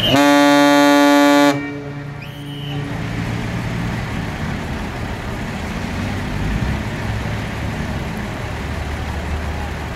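A ship's horn sounds one loud blast of about a second and a half, a single held tone that cuts off sharply and leaves a fainter echo trailing after it. Afterwards a steady low rumble continues.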